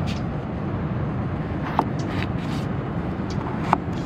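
A knife slicing a raw potato into fry strips on a paper plate, with two short sharp taps of the blade, one just under two seconds in and one near the end. A steady low background rumble runs underneath.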